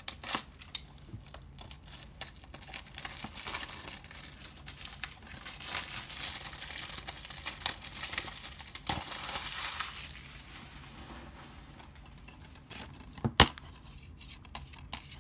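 Cellophane shrink wrap crinkling and tearing as it is peeled off a plastic DVD case. Near the end comes a sharp double click as the case snaps open.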